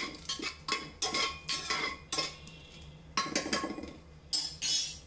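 Metal spoon scraping and clinking against the bottom and sides of an aluminium pressure cooker, stirring whole spices frying in oil: a string of short, irregular scrapes and clinks.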